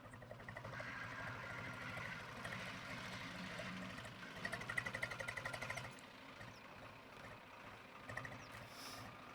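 An engine running with a fast, even pulse, louder for about the first six seconds and then dropping away to a lower hum.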